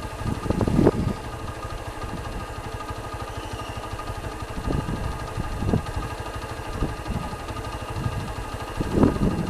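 Combine harvester engine running steadily, with a few brief louder swells about a second in and near the end.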